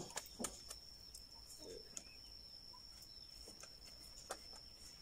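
Knife slicing through a fresh bamboo shoot: a few quick sharp cuts right at the start, then only scattered faint knocks. A faint steady high-pitched tone runs underneath.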